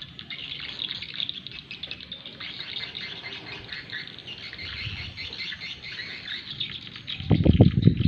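Swiftlet calls, a dense, fast, high twittering of many chirps overlapping, played through a swiftlet-house "sonic" tweeter speaker as a lure call. About seven seconds in, a loud low rumble covers them.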